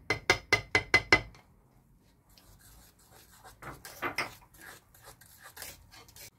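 A quick run of about six light ceramic clinks in the first second as baking powder is tapped out of a small ceramic bowl over an earthenware pot. After a pause, a fork stirs and scrapes flour into a thick egg batter against the sides of the pot, in soft, irregular strokes.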